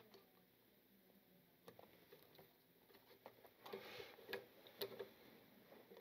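Near silence with faint, scattered small clicks and scrapes of a screwdriver turning a terminal screw on a plastic lampholder as a wire is tightened under it, busiest from about three and a half to five seconds in.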